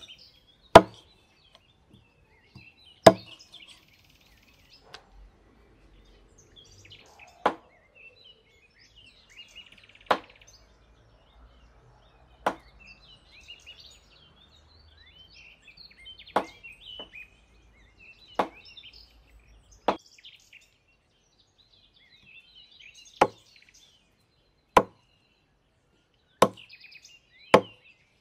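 Meat cleaver chopping the claw tips off chicken feet, each stroke a single sharp chop into a thick wooden chopping board, about a dozen chops a couple of seconds apart. Small birds chirp faintly between the chops.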